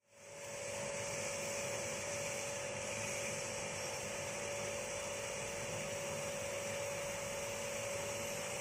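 A steady machine hum with a constant whining tone over an even hiss, fading in over the first second and holding level.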